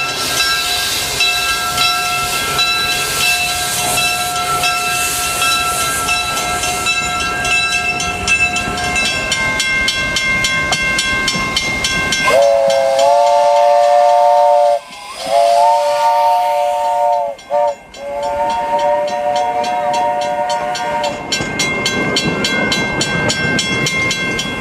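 Steam locomotive letting off a loud steady hiss of steam. About halfway through, its chime whistle sounds a chord of several notes at once, sliding up into pitch. It is blown in three long blasts with short breaks between, then the steam hiss carries on.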